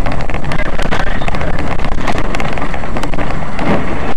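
Car road and engine noise picked up by a dashcam microphone inside the cabin: a loud, steady rumble and hiss with frequent crackles.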